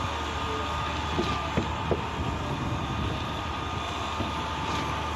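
Cifa K41L truck-mounted concrete pump running: a steady low drone with a high steady whine over it, and a few sharp knocks in the first two seconds.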